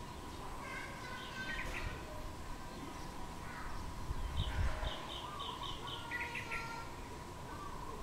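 Yellow-vented bulbul calling: scattered short chirps, a quick run of about five high notes about halfway, and a brief cluster of rapid notes a little later. A faint steady tone runs underneath, with a low rumble about halfway.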